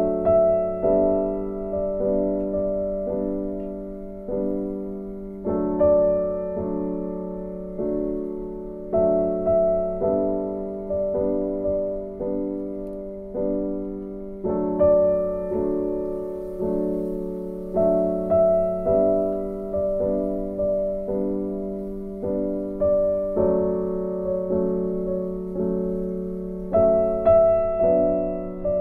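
Background piano music: notes and chords struck every half second or so, each fading before the next.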